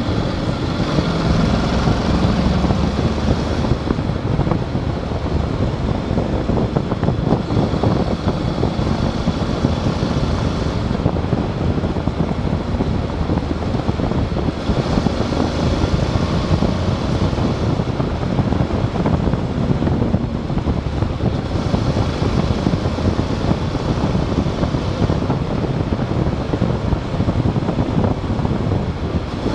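Motorcycle being ridden at road speed, its engine running steadily under heavy wind noise on the microphone.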